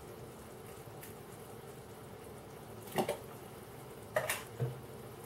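A spoon stirring in a plastic measuring jug to dissolve stock pots in boiling water, with a few short knocks of the spoon against the jug in the second half, over a faint steady hiss.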